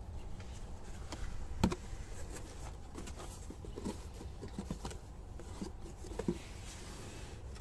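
Box and packaging of new brake discs being handled and opened: scattered light clicks and rustles, with a sharper knock nearly two seconds in and another about six seconds in.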